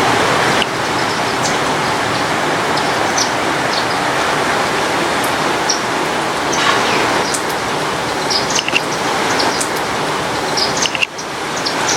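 Steady rain falling with a dense hiss, with short, high bird chirps scattered through it.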